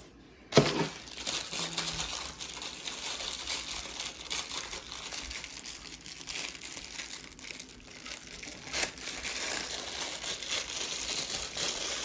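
A sharp knock about half a second in, then continuous crinkling and rustling with many small crackles, as plastic is handled close to the phone's microphone.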